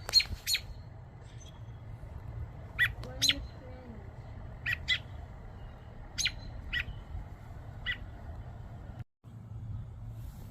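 American robin giving short, sharp alarm calls, often in pairs, every second or two: a parent scolding a person near its nest of chicks.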